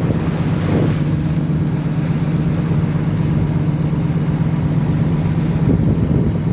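A motor engine running steadily at a constant low hum, with wind and sea noise underneath.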